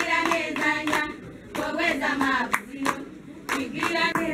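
A group of girls clapping a steady beat with their hands while singing in short phrases, accompanying a dance.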